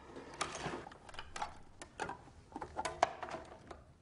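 Scattered clicks and light knocks as a horn gramophone is handled and a record is set on its turntable.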